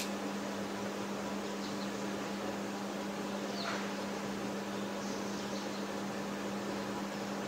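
Steady low hum and hiss of room tone, with a few faint squeaks of a marker writing on a whiteboard around the middle.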